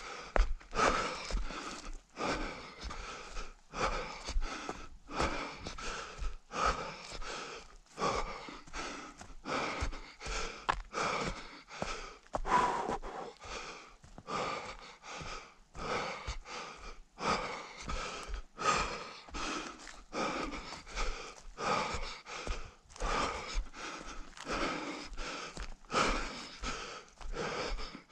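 A runner's hard, rhythmic breathing close to the microphone, quick even puffs about three every two seconds.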